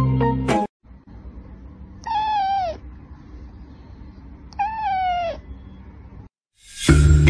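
Kitten meowing twice, two short calls about two and a half seconds apart, each falling in pitch, over a faint steady low hum.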